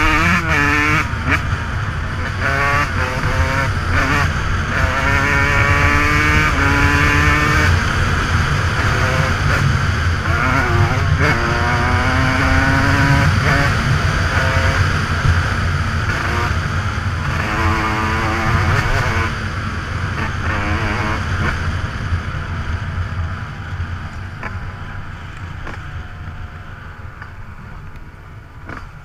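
Dirt bike engine revving hard and shifting through the gears over and over, its pitch climbing and dropping back each time; it grows quieter over the last several seconds.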